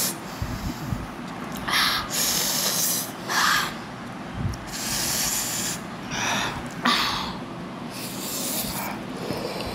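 Noodle slurping and sharp, hissing breaths drawn and blown through the mouth while eating extra-spicy instant noodles, in a string of about seven short bursts.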